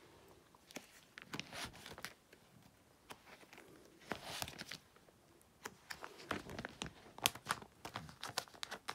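Plastic binder sleeve pages crinkling and rustling as they are flipped by hand, with irregular small clicks and taps of handling. The rustling gets busier about halfway through.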